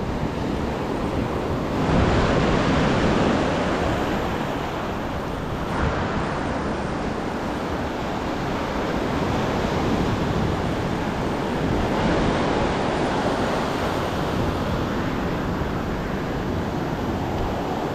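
Ocean surf breaking and washing up a sandy beach, a continuous rush of foam that swells louder three times, with wind buffeting the microphone.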